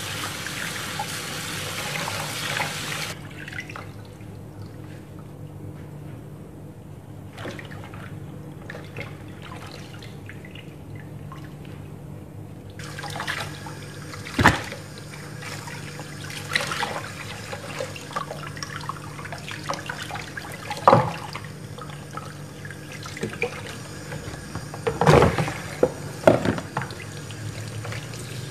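Kitchen tap water running into a plastic basin of water in the sink while a raw chicken is rinsed and rubbed by hand. The flow stops about three seconds in and starts again a little before halfway, with a few sharp knocks and splashes in the second half.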